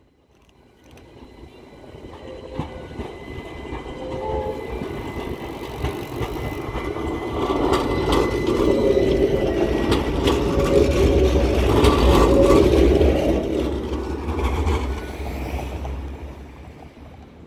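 AnsaldoBreda Sirio low-floor tram passing close by. Its running noise builds over several seconds and is loudest about halfway, with a few sharp wheel clacks on the rails, then fades as it pulls away.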